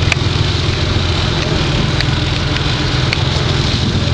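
Fishing boat's engine running steadily, with a rush of wind and water over it and a few faint ticks.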